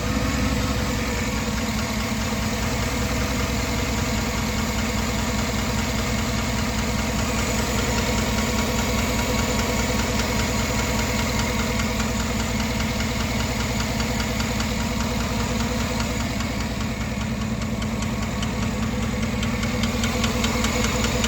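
A 2009 GMC Sierra's 5.3-litre LY5 V8 idling steadily with a rapid, even lifter tick. The owner puts the tick down to a failing lifter on cylinder 1, intake side.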